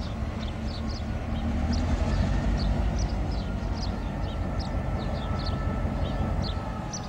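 Diesel locomotive engine running at a distance, its low rumble growing a little louder about two seconds in and easing near the end. Birds chirp in short high calls throughout.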